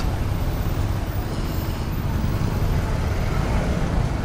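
Motorcycle engine running steadily at low speed in slow, crowded street traffic, with traffic noise around it.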